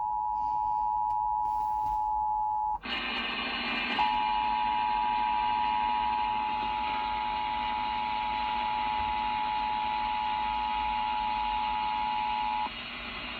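Emergency Alert System attention signal heard over FM radio: a steady dual tone that breaks off about three seconds in. It resumes over a hiss about a second later and holds until near the end, when only the hiss is left.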